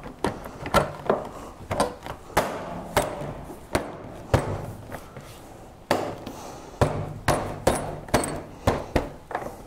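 Plastic body panel of a BMW F900XR being pressed and tapped back into place by hand: a series of irregular knocks and clip snaps as it seats.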